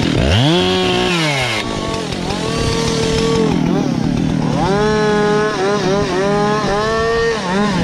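Gas chainsaw running under load, its engine speed rising and falling as it cuts pine. The pitch drops sharply at the start and climbs back within about a second.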